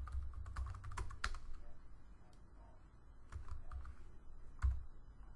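Typing on a computer keyboard: irregular keystrokes, a quick run of them in the first second or so, then scattered single taps, each key with a dull thud under the click.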